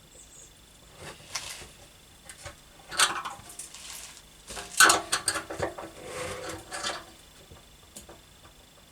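Screwdriver scraping burrs off the edge of a freshly drilled hole in a petrol tank, in several separate scraping strokes. The loudest strokes come about three and five seconds in.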